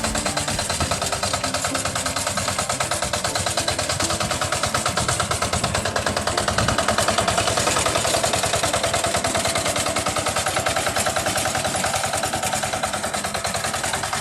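A small engine running close by, with a fast, even beat of firing pulses that swells a little midway.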